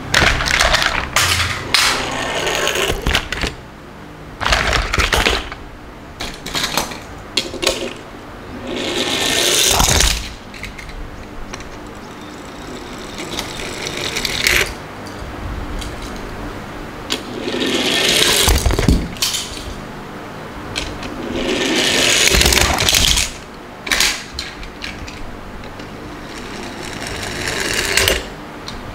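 Toy cars rolling down a wooden board, several runs in turn. Each run is a rolling noise that grows louder over a second or two and stops sharply, with scattered knocks and clicks between the runs.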